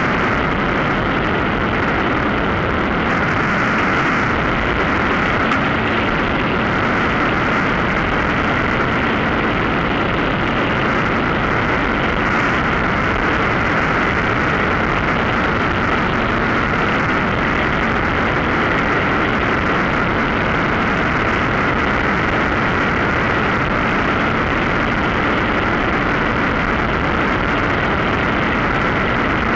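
Steady in-flight noise on a hang glider with a Mosquito power harness: a continuous, unchanging rushing drone.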